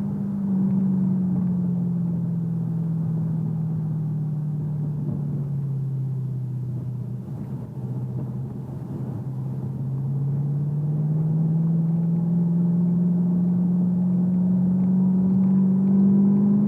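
Exhaust note of a 2014 Shelby GT500's supercharged 5.8-litre V8 under way. The engine's pitch sinks gradually over the first several seconds, then climbs smoothly and steadily back up through the rest, as engine speed drops and then builds again.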